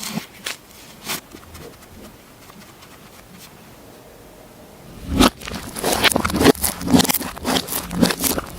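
Slime being handled and squished by hand: a few scattered clicks, a quieter stretch, then dense crackling and popping from about five seconds in.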